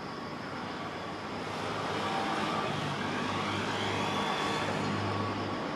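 Saitama New Urban Transit New Shuttle 1050 series rubber-tyred people-mover train approaching on its concrete guideway, a steady rumble growing louder about a second and a half in, with faint whining tones over it.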